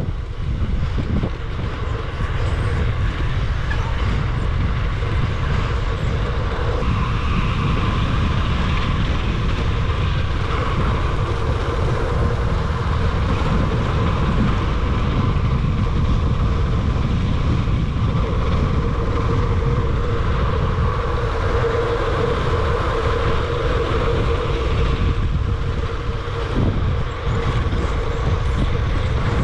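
Bicycle rolling along a paved road: a continuous rumble of tyres and wind buffeting the microphone, with a faint steady hum over it.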